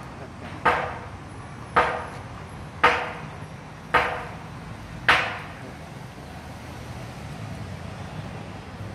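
Playground seesaw with a metal tube frame knocking as it rocks: five sharp, ringing clanks about a second apart that stop a little past halfway, over a steady low rumble.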